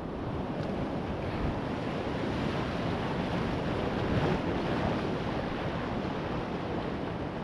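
Surf breaking and washing, with wind buffeting the microphone; the wash grows briefly louder about four seconds in.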